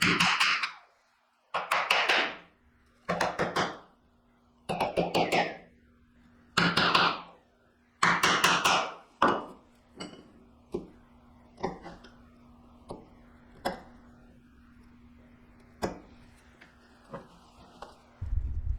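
Chisel driven by a mallet into walnut: about six quick clusters of rapid strikes, then lighter single taps spaced a second or so apart, chopping out the waste between the pins of a dovetail joint.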